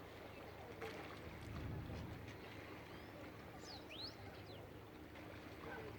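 Waterside outdoor ambience: a steady low rumble with a few short, quick bird chirps, clustered just before the four-second mark, and a faint click about a second in.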